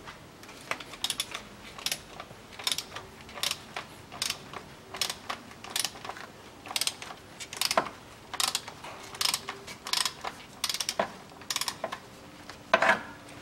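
Hand ratchet clicking in short runs about once a second on its back-strokes, as a 24 mm socket unscrews the oil filter housing cap.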